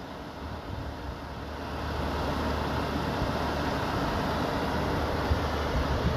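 Car on the move: a steady rumble of engine and road noise that builds over the first two seconds and then holds steady.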